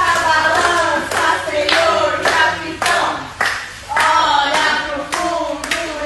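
Voices singing a melody with hand clapping in rhythm, about two claps a second.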